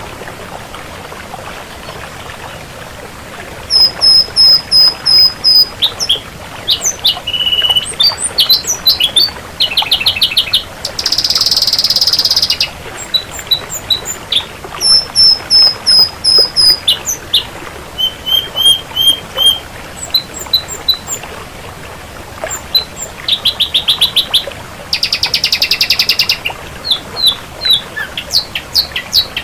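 Ashy drongo singing: after a few seconds of steady hiss, a loud run of varied phrases starts, mixing series of repeated high whistled notes, quick slurred chips and harsh buzzy rattles.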